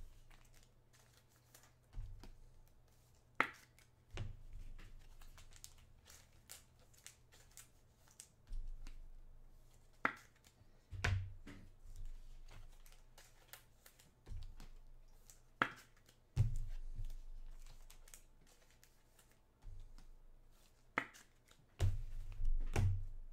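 Trading cards and their packaging being handled: scattered rustling and light clicks, with a few sharper clicks several seconds apart and low thumps.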